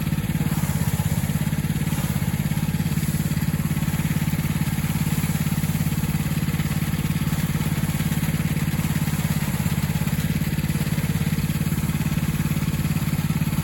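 A small engine running steadily at constant speed, with a low even hum and a rapid regular pulse.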